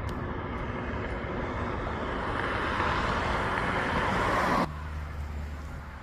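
Road traffic noise over a steady low rumble, building louder until it cuts off abruptly about four and a half seconds in.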